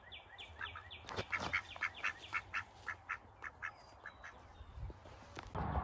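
Ducks quacking in a quick run of short calls, several a second, that dies away after about four seconds. Near the end a loud, steady rushing noise starts suddenly.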